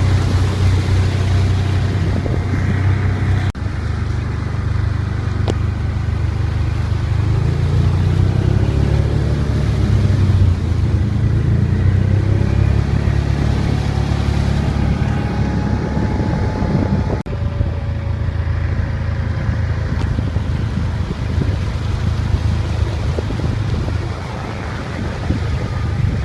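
An engine running steadily with a low hum, broken off abruptly twice, about 3.5 seconds and 17 seconds in.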